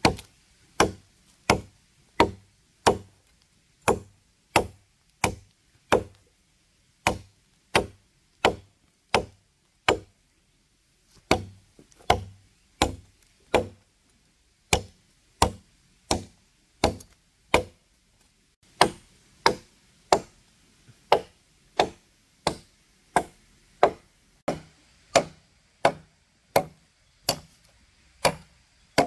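A machete chopping into a thin wooden log, sharp strikes at a steady pace of about one and a half a second, with two short pauses.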